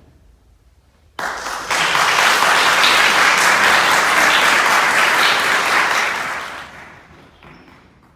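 Audience applauding, starting suddenly about a second in, then dying away near the end.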